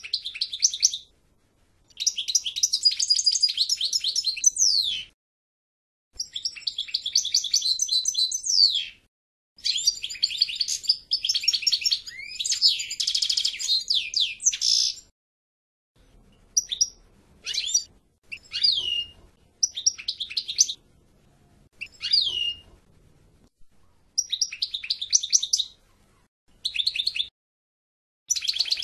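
European goldfinch singing: long, fast twittering and tinkling song phrases in the first half, then shorter phrases and calls with falling notes, separated by brief pauses.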